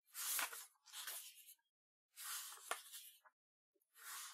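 Paper pages of a thick bound book being turned by hand: about four short rustles of paper, one ending in a sharp snap of a sheet.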